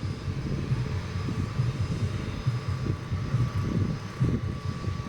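Jet aircraft engines running: a low, uneven rumble with a faint steady whine above it.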